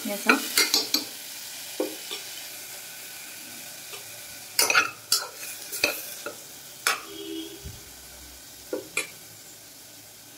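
Metal spoon stirring and scraping carrots and potatoes in the aluminium pot of a pressure cooker, over the steady sizzle of the vegetables frying in a little oil with panch phoron. The scrapes come in irregular clusters, with quieter stretches of sizzle between them.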